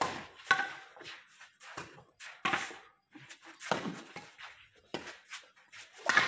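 Badminton rackets hitting a shuttlecock back and forth in a rally: sharp smacks about once a second, a few with a short ringing ping.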